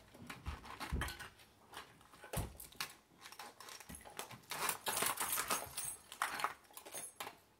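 Small plastic toys clicking and clattering as children pick them up and handle them: an irregular scatter of light knocks and rattles, busiest around the middle.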